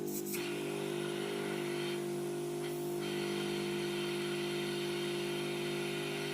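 Steady electric machine hum with many evenly spaced overtones, from repair-bench equipment running. A brief rustle comes right at the start, and a faint hiss about two seconds in.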